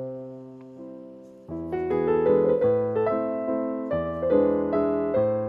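Background piano music: a chord that fades away, then from about a second and a half in a busier run of notes.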